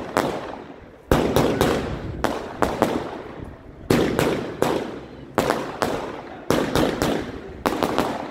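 Fireworks going off in a rapid series of sharp, loud bangs, about two a second in bunches of two or three, each with a short echo dying away behind it.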